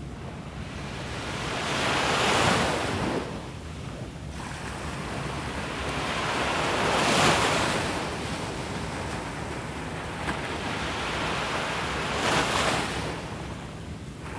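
Surf breaking and washing up a beach, with three waves swelling and fading about five seconds apart, and wind buffeting the microphone.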